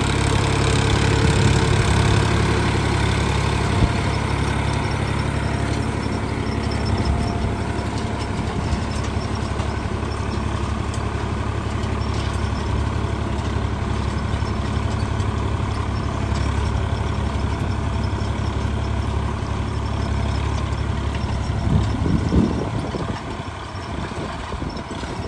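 Swaraj 963 FE tractor's diesel engine running steadily under load while pulling a bed planter, a continuous low drone that grows quieter near the end.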